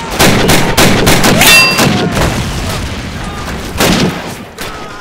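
Battle sound effects of World War II gunfire and explosions: rapid rifle and machine-gun shots with booming blasts, densest in the first two seconds, and another loud blast nearly four seconds in.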